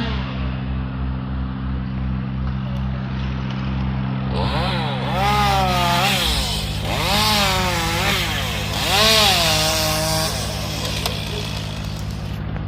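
A chainsaw revving up and down as it cuts, its pitch rising and falling several times, over a steady low engine drone.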